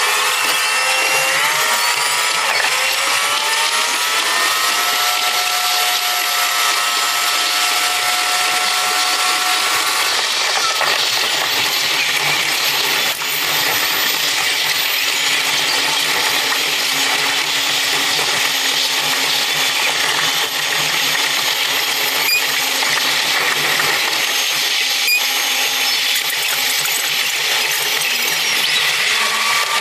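Diesel railcar sound sped up eightfold into a high whirring whine. The engine's pitch climbs over the first few seconds as the railcar accelerates and holds steady for several seconds. About ten seconds in the engine note drops out, leaving a steady rush of wheels on rails with a few sharp clicks.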